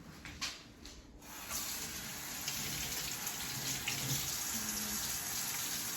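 A faucet turned on about a second in, then water running steadily into a sink for hand washing.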